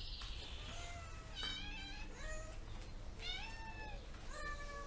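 Domestic cat meowing repeatedly: about six short meows, roughly one a second, some rising and some falling in pitch.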